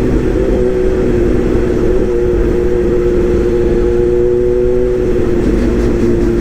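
Excavator running steadily, its engine and a constant held whine over a rough low rumble.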